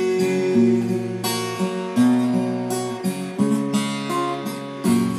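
Acoustic guitar played solo, a series of chords strummed and picked with a new chord struck about every second, in an instrumental break between sung lines.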